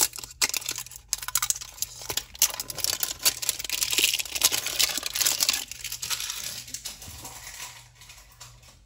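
Clear plastic shrink-wrap being peeled off a plastic toy canister and crinkled in the hand: a dense run of small crackles and tearing, loudest in the middle and dying away after about six seconds.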